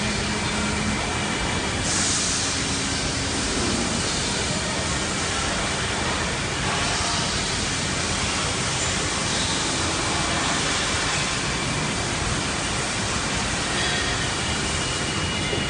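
Steady machine noise from a CNC lathe cell running: a dense, even hiss with faint steady tones.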